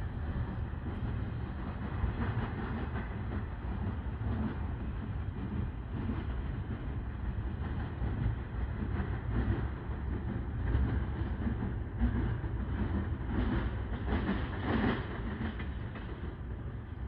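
Norfolk Southern freight train's cars rolling past: a steady low rumble with irregular clatter of steel wheels on the rails.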